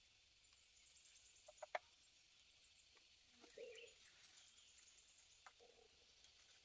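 Near silence: faint outdoor ambience with a few distant bird chirps, a sharp click a little under two seconds in, and two short low calls later on.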